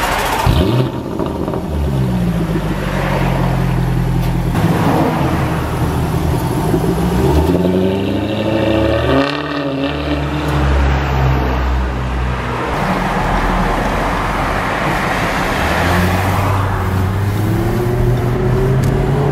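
Jaguar F-Type R's supercharged V8 through its quad exhaust, revving with pitch swinging up and down, then accelerating hard with a rising pitch about eight seconds in. From about sixteen seconds in the engine runs more steadily under driving.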